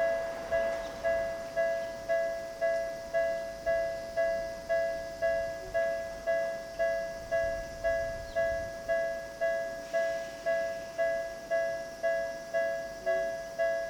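Electronic railway level-crossing warning bell of Tokyu's newer tone type, ringing steadily at about two strikes a second, each note fading before the next.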